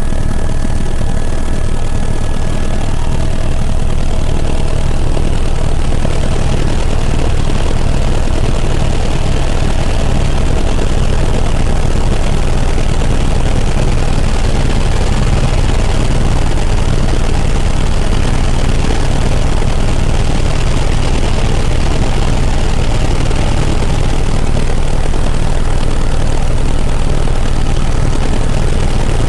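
Helicopter in flight: loud, steady rotor and engine noise, heaviest in the low range and unchanging throughout.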